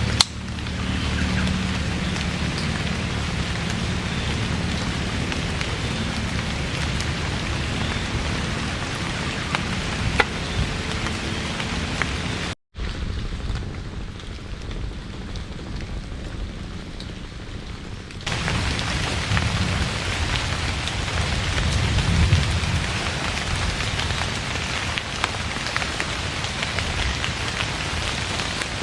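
Heavy rain falling: a steady hiss with scattered drop ticks. It cuts out briefly about halfway through, comes back duller and quieter for a few seconds, then returns at full strength.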